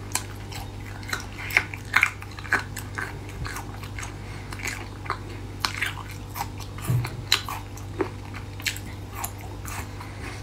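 Chewing and biting on spicy dressed beef skin strips: wet mouth sounds with irregular sharp crunches.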